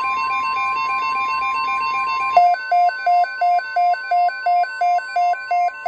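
NOAA Weather Radio's steady 1050 Hz alert tone sounding for an emergency alert, with a fast warbling pattern of higher tones behind it. About two and a half seconds in, that pattern gives way to a loud beeping alarm, about three beeps a second, while the steady tone goes on.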